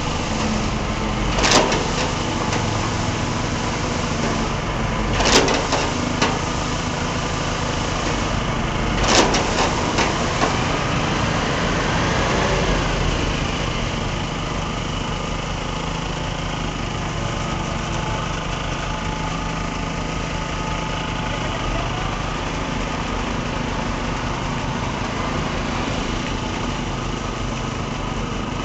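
Engine of concrete-pouring machinery running steadily during a slab pour, with three sharp knocks in the first ten seconds, about four seconds apart.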